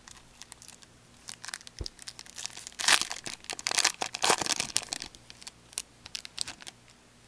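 Crinkling and tearing of a trading-card pack wrapper being opened by hand, irregular crackles that grow busiest in the middle and thin out near the end.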